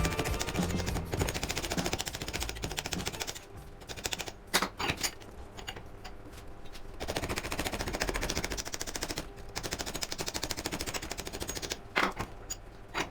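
A rapid, even mechanical rattle, like a fast run of clicks, that eases briefly about four seconds in and again near ten seconds, with a few sharper knocks.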